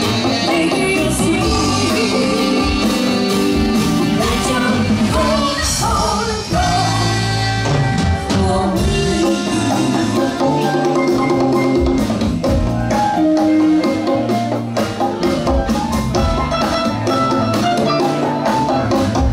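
Live funk band playing, with female lead vocals over drum kit, electric bass, electric guitar and congas.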